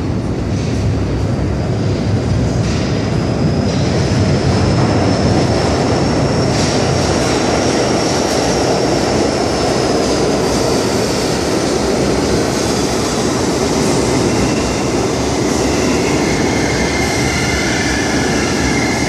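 R32 subway train running into the station, its steel wheels rumbling and clattering on the rails. A high, drawn-out wheel squeal comes in about four seconds in and sinks slightly as it fades, and lower squealing builds near the end as the train slows.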